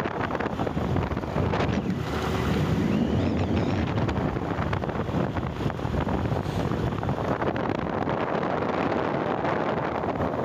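Steady wind buffeting the microphone on a moving bike, with a continuous rush of road and riding noise beneath it.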